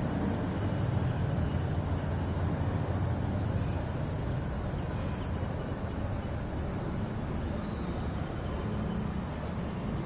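Steady low background rumble of an outdoor recording.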